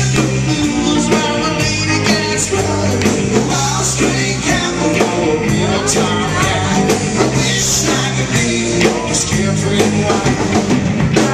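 Live rock band playing loud: electric guitars over a drum kit, with a stepping low line and steady drum hits.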